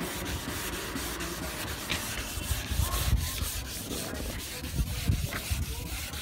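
Hand wet-sanding of a car's painted body panel: abrasive paper rubbed back and forth over the wet paint in short strokes, flatting the old paint before it is repainted.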